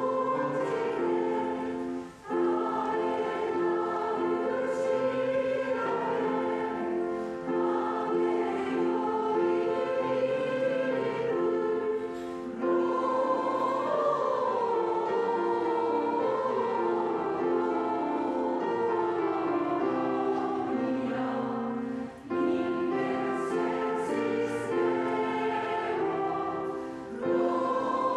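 A choir singing a Christmas hymn in held, chorded phrases, pausing briefly between phrases about every five to ten seconds.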